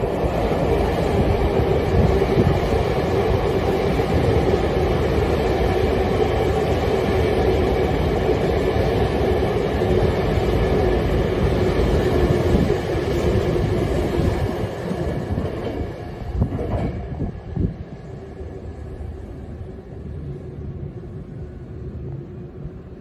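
Hankyu 9000 series electric train running through the station at speed without stopping: loud, steady rail running noise with a constant hum, dying away after about sixteen seconds.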